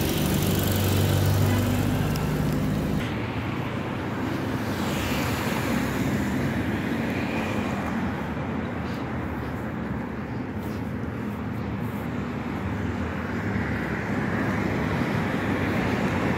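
Road traffic on a city street: a vehicle engine hums for the first few seconds, then the steady noise of passing cars.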